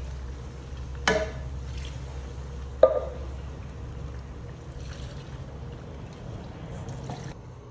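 Chicken broth poured from a plastic measuring cup into a tin can of beans to rinse it out. Two sharp knocks come about one and three seconds in, over a steady low hum.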